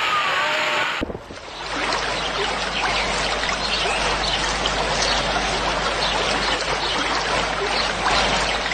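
Steady rushing, trickling noise like flowing water, with an abrupt change in the sound about a second in.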